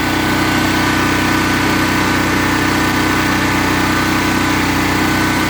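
Generac portable generator's small gasoline engine running at a steady speed, an even, unchanging engine hum.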